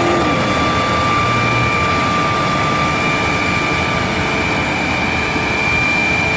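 Truck-mounted boom crane running as its boom is worked, a steady engine noise with a high, steady whine over it.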